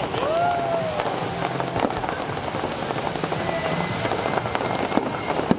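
Aerial fireworks bursting and crackling, with a sharp bang about two seconds in and another near the end, over music.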